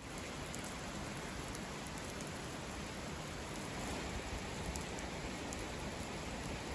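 Steady rain falling on a railway station platform and tracks.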